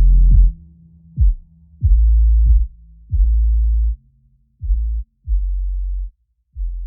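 Electronic end music: a run of deep bass notes, each starting with a quick downward slide in pitch, spaced further apart and getting quieter toward the end.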